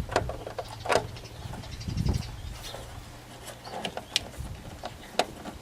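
Scattered sharp clicks and knocks of hand tools and metal and plastic parts being handled while a screw is driven in to hold a blower motor in its housing.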